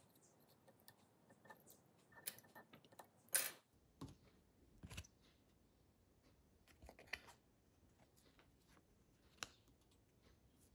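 Faint handling sounds of fly-tying tools and materials at the vise: scattered small clicks and brief rustles, with one louder rustle about three and a half seconds in.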